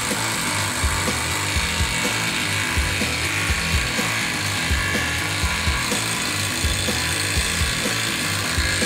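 Panasonic EY7551 18 V cordless impact wrench driving a lag screw into timber, running continuously with its hammering drive, over background music with a steady beat.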